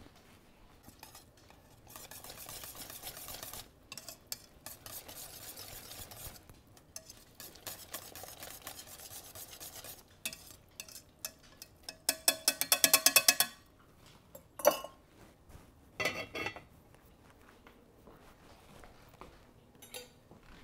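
Wire whisk stirring thick, nearly cooked grits in a stainless steel saucepan, a steady scraping swish. Then comes a fast run of sharp metal clicks of the whisk against the pot, the loudest part, and a couple of metallic clanks as the pan's lid goes back on.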